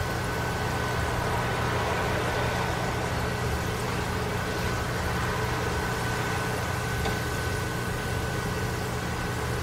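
French fries sizzling in hot frying oil as they are scooped out with a slotted spoon, over a steady low hum and a thin steady whine.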